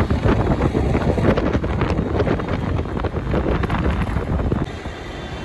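Wind buffeting the microphone in loud, rough gusts, dropping off suddenly near the end.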